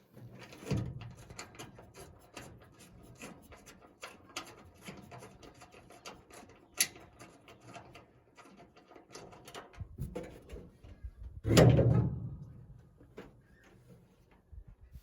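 Hand tools working on the truck's hood hinge hardware: irregular clicking and clinking of metal, with one loud clunk about three quarters of the way through.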